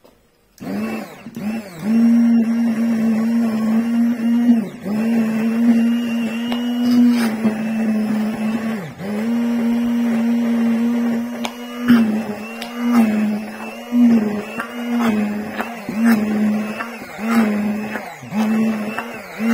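Hand-held immersion blender running in thick cupcake batter, its motor whine starting about half a second in. The pitch dips and recovers now and then as the blade bogs down or is let off, about once a second in the second half, with a few sharp clicks.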